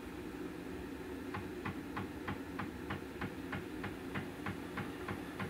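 Even mechanical ticking, about three clicks a second, starting a little over a second in: a stepper-driven CNC machine axis jogging slowly.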